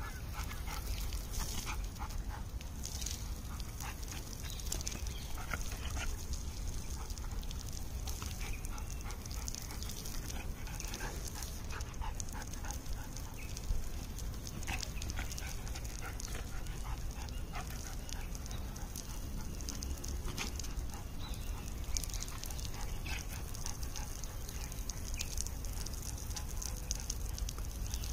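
A golden retriever vocalising now and then while it snaps at a sprinkler's water spray, loudest about halfway through. A steady high hiss runs underneath.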